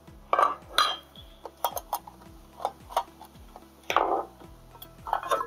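Sheet-steel enclosure cover plate and small screws being handled and set down on a hard surface: irregular metallic clinks and knocks, the loudest about half a second in and again about four seconds in.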